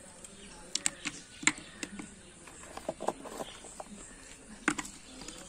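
Broken terracotta pieces knocking and scraping against each other and the clay pot as a hand arranges them in its bottom: a handful of sharp clinks among faint scratching.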